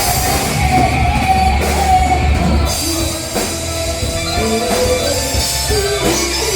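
Rock music playing loudly with a drum kit and a wavering melodic lead line.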